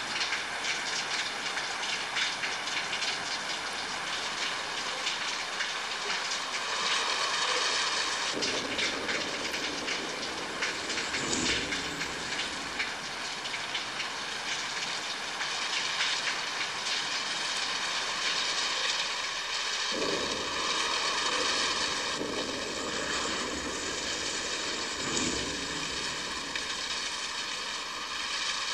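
Steady heavy rain, a dense hiss, with two brief low rumbles of thunder, one about eleven seconds in and another later on.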